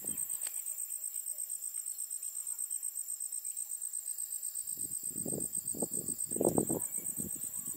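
Insects trilling steadily, a high-pitched pulsing chirr at about ten pulses a second. From a little past halfway, irregular low bumps and rustles come in over it.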